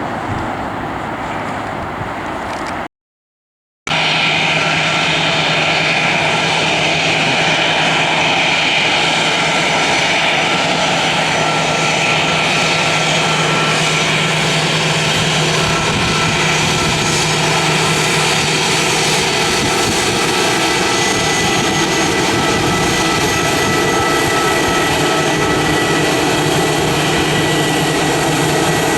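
Jet airliner engines running loud and steady, a rush of noise with a whine of several high tones over a low hum. A cut to silence lasting about a second comes about three seconds in.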